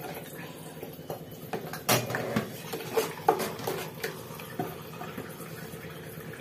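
Cooked dal being mashed and stirred in a metal pressure cooker pot, the utensil knocking against the pot's sides now and then, a few knocks louder than the rest.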